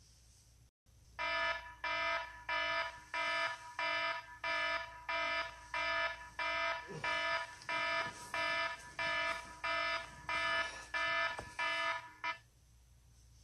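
Electronic alarm beeping in a steady repeating pattern, about three buzzy beeps every two seconds, some seventeen in all, stopping abruptly near the end.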